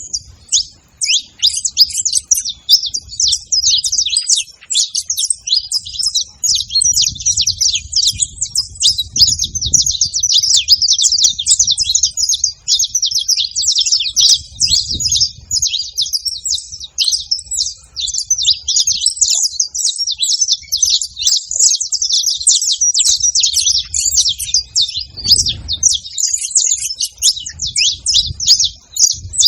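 A flock of saffron finches chirping together, many short calls overlapping in a continuous chatter.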